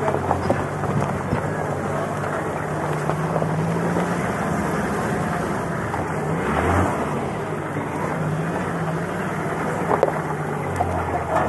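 Toyota Land Cruiser V8 engine running at low speed on a rough stony track, its note rising and falling a little, with gravel crunching under the tyres and wind on the microphone.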